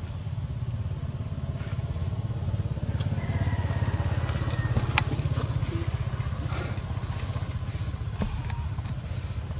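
A motor vehicle engine running steadily nearby: a low, rapidly pulsing rumble under a steady high hiss. A brief thin, high whistle-like tone sounds about three seconds in, and a few sharp clicks break through.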